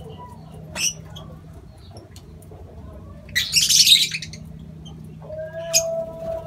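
Lovebirds on the aviary floor, with a loud harsh squawking burst about three and a half seconds in and a sharp click near the start. A steady tone begins about five seconds in and holds.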